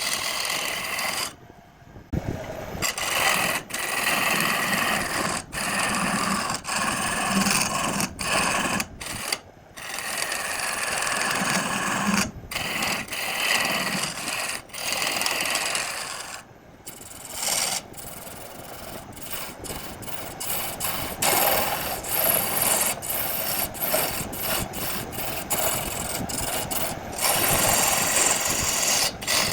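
Rasping, rubbing noise of hand or shop work on a piece of wood and epoxy resin, broken again and again by abrupt cuts and short breaks.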